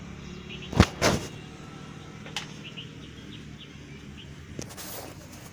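Two sharp knocks in quick succession about a second in, then fainter clicks later, from tools or metal parts being handled during motorcycle engine work, over a low steady background hum.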